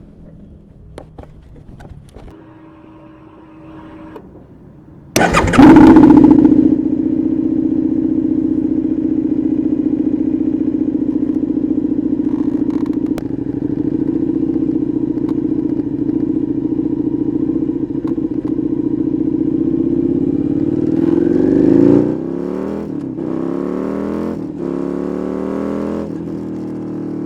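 Suzuki SV650's V-twin engine catching with a loud burst about five seconds in, then idling steadily, followed near the end by several throttle blips that rise and fall in pitch.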